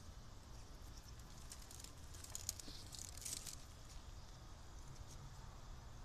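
Faint rustling and soft crackling of dry nest material being handled, strongest between about one and a half and three and a half seconds in, over a low steady hum.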